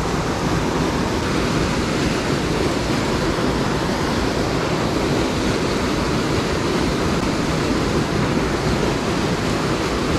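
Steady rush of a creek tumbling over rocks and a small cascade, an even, unbroken noise.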